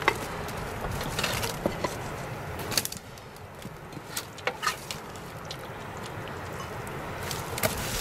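Metal ladle scraping and knocking in a cooking pot and clinking against metal plates as food is served: scattered sharp clinks, a few with a short metallic ring, over a steady outdoor background noise.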